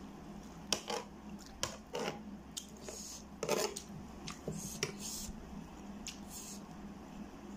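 A metal fork scraping and clicking against a tray while it twirls and lifts noodles: a series of short, sharp scrapes through the first six seconds, quieter near the end.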